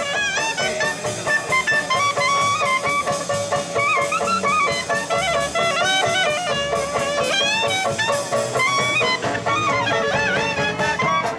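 Street jazz band playing live: trumpet and clarinet lines over banjo, double bass and a drum kit keeping a steady beat.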